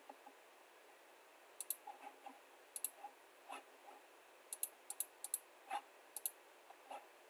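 Computer mouse buttons clicking, about a dozen sharp clicks, many in quick pairs, with a few softer, duller taps between them.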